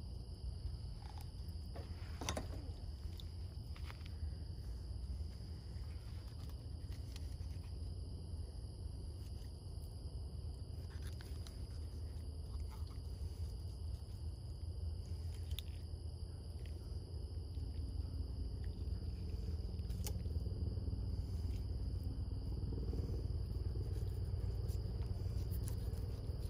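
Steady insect chorus: a few unbroken high-pitched drones at different pitches over a low rumble, with a few faint, scattered taps.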